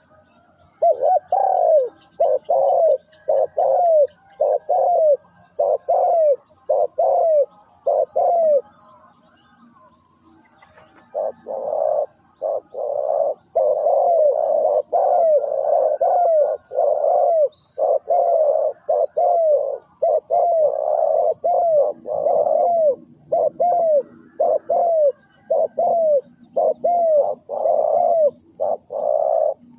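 Spotted doves cooing: runs of short, low, repeated coos, pausing for a couple of seconds about eight seconds in, then calling densely. Faint high chirps of small birds sit behind them.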